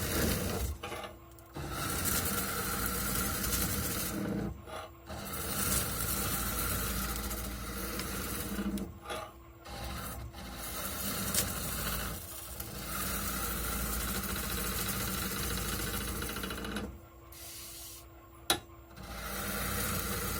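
Wooden tool handle being worked on a lathe: a steady rasping and rubbing against the spinning wood, broken by several brief pauses and one longer pause near the end, with a single sharp click during that pause.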